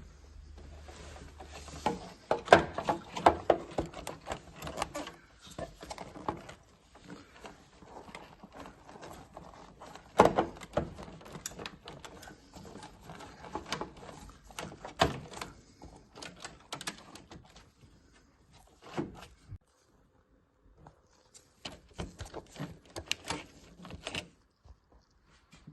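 Irregular plastic knocks, clicks and rattles of a combi boiler's condensate trap being handled and refitted, with the loudest clatter near the start and a short pause before a last flurry of clicks.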